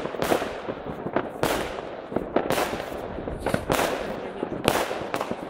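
Fireworks going off, with the bangs of aerial shells bursting about once a second and a constant crackle of smaller firecrackers between them.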